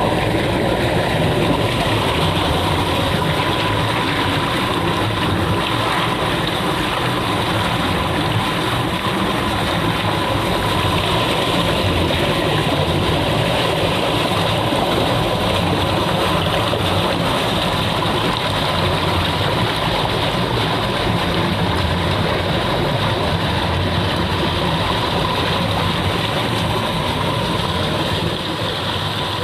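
Running water rushing steadily, as in a stream or river.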